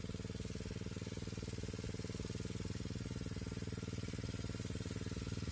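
Small four-stroke engine (General brand) driving a portable shallot-watering pump, running steadily at constant speed with a fast, even putter.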